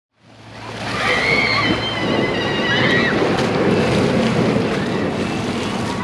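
Surf washing onto a beach in a steady rush, with wind on the microphone; the sound fades in over the first second. A few high sounds that bend in pitch come in from about one to three seconds in.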